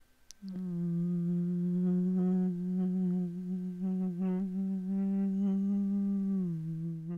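A man humming one long held note in place of the film's score, stepping down to a slightly lower note near the end.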